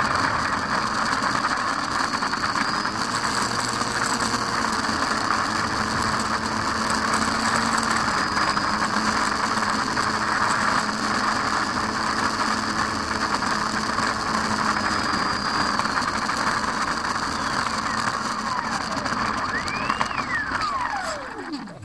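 Onboard sound of a Drifter Ultralight electric RC model plane rolling along asphalt: a steady, loud hiss and rattle from its brushless motor, propeller and wheels. Near the end a whine rises briefly and then falls steeply as the motor winds down, and the noise drops away.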